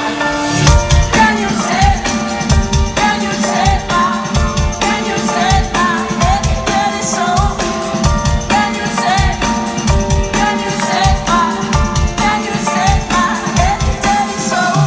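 Live pop-rock band heard through a festival PA from within the crowd: a singer's voice over a steady kick drum and bass.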